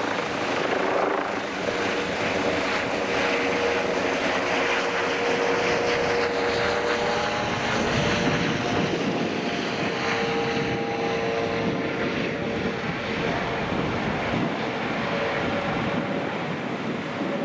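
Airbus EC135 air-ambulance helicopter flying overhead after takeoff: steady rotor and turbine noise with humming tones that shift in pitch as it moves away.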